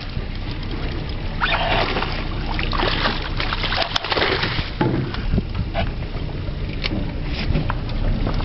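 Hooked kingfish thrashing at the water's surface, throwing up irregular splashes, over a steady low rumble.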